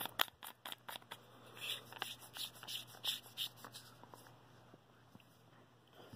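Small clicks and scrapes of a flashlight being screwed together by hand, its threaded parts turning after a battery is loaded. The handling is busy for about four seconds, then dies down to a few light touches.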